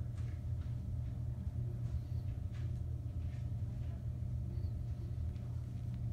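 Steady low hum of room tone, with a few faint brief sounds scattered through it.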